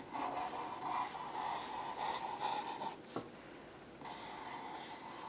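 Black felt-tip permanent marker scratching across paper in squiggly strokes. It stops about three seconds in, with one small tap, and starts again about a second later.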